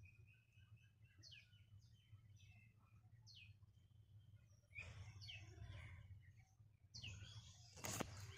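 Faint bird chirps: short notes that fall in pitch, scattered a second or two apart over near silence. Soft rustling comes in about five seconds in and again near the end.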